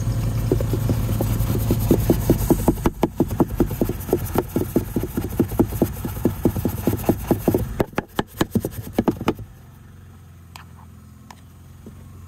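Detail brush scrubbing all-purpose cleaner into a car's plastic door pocket: quick back-and-forth strokes, about four a second, that stop about nine seconds in.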